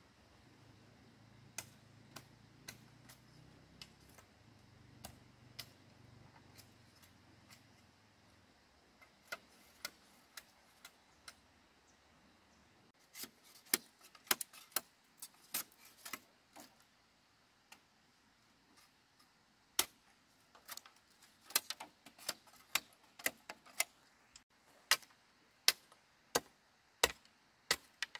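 Light, sharp taps and clicks at an irregular pace, sparse at first and coming in quick clusters in the second half.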